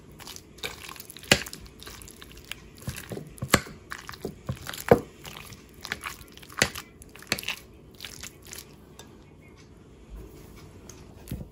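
Metal fork mashing and stirring a thick mixture of shrimp, mayonnaise and cream cheese in a bowl: wet squishing with irregular sharp clicks where the fork knocks and scrapes the bowl. It thins out after about eight seconds.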